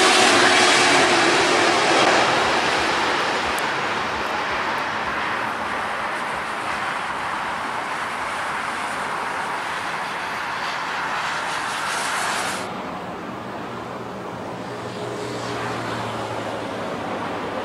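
Boeing 777-300ER's GE90 jet engines: a loud rush as the airliner passes low on approach, fading steadily as it lands and rolls out. About two-thirds through the sound cuts abruptly to a quieter, more distant jet engine noise with a low hum that swells toward the end as the 777 runs up for takeoff.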